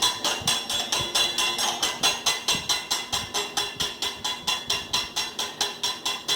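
Egg being beaten by hand in a bowl: a utensil clicking rhythmically against the side, about four strokes a second.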